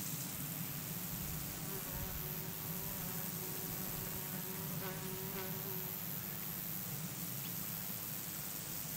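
An insect buzzing for a few seconds, a droning tone that starts about a second and a half in and fades out around six seconds, over a steady low background hum.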